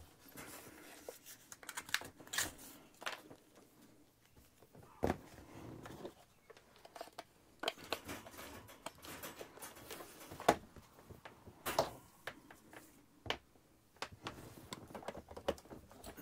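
Starlink cables and power supply being handled and plugged in: scattered clicks and knocks, with some rustling in between.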